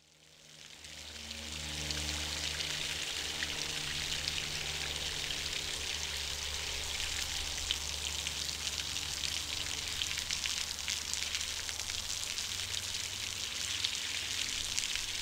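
Water from a fountain's spout splashing into its basin: a steady hiss with fine crackle over a low hum. It fades in over the first two seconds and fades out at the end.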